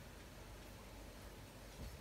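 Near silence: room tone with a low hum and a soft thump near the end.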